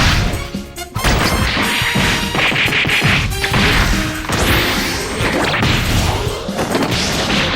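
A dense string of anime-style fight sound effects: rapid punches and crashes overlapping with whooshes, with brief ringing tones and a high rising sweep about halfway through.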